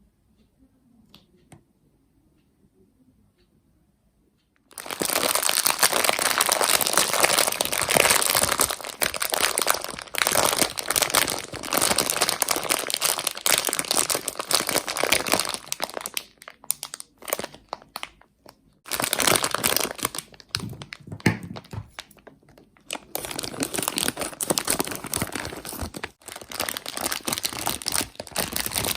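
Plastic Haribo sweet bags crinkling loudly as they are handled and opened, in long crackling spells with short breaks. The first few seconds are nearly quiet apart from a few faint clicks.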